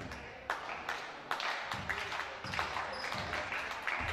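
Basketball court sounds: a ball bouncing with irregular sharp knocks and scattered claps, and a brief high squeak a little past the middle.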